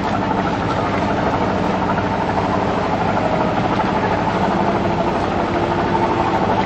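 A boat's engine running steadily under way, a constant hum with a faint rushing noise behind it.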